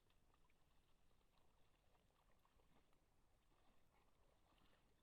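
Near silence: a faint low hiss with scattered faint small ticks.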